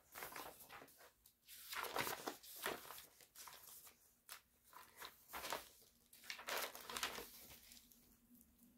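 Pages of a folder of printed patterns being leafed through: faint paper rustling and crinkling in irregular short bursts.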